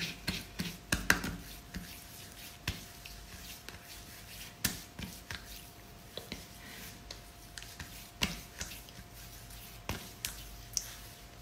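Hands patting face cream into the skin of the face in a patting massage: quiet, irregularly spaced slaps, a dozen or so.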